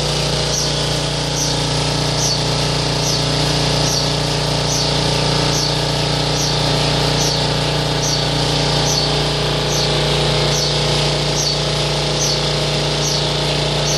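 HTS DC induction heating machine running: the motor spins an iron billet in the superconducting magnet's field, giving a steady hum. Over it, a short, high chirp repeats evenly about twice a second.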